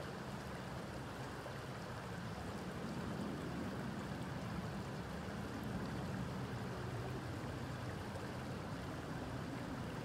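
Stream water flowing steadily, an even, low rushing.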